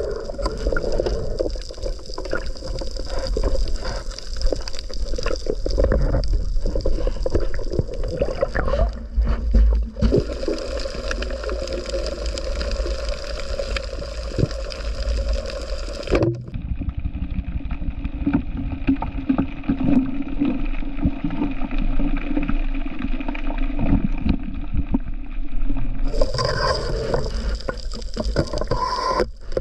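Water swirling and gurgling around an underwater camera housing as a spearfisher swims, with small knocks and rubs against the gear. The sound goes duller for about ten seconds past the middle, then brightens again.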